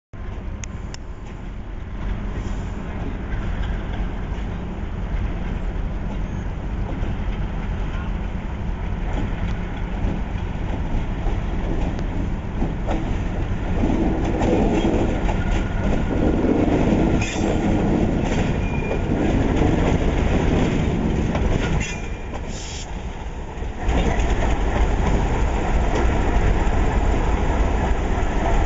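Alco RS32 diesel-electric locomotive moving slowly past, its diesel engine running with the wheels rolling over the track. The sound dips briefly about three-quarters of the way through, then returns.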